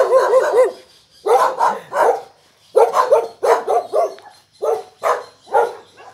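Guard dogs barking behind a gate: a run of short, loud barks, about two a second, with a few quick yips at the start.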